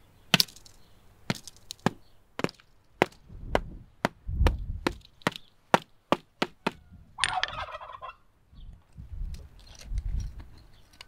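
A hammer knocking on the hard baked salt crust over a whole turbot, about a dozen sharp taps roughly half a second apart that crack the crust open. About seven seconds in, a turkey gobbles once.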